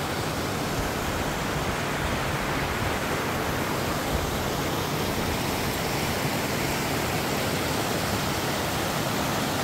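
Steady rushing of a small mountain stream cascading over rocks.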